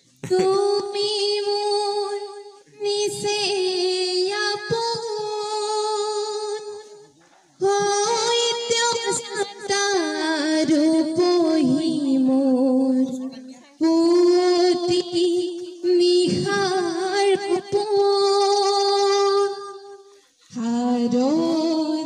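A woman singing solo with no accompaniment into a handheld microphone: long held notes in several phrases, with short breaks for breath between them.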